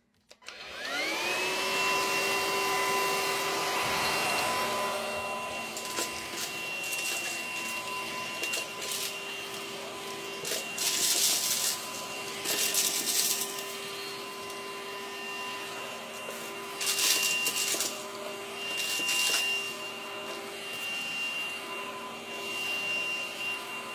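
Small cordless vacuum switched on, its motor whining up to speed within about a second and then running steadily. Loud bursts of crackling and rattling come and go as it picks up debris, most of them between the middle and near the end.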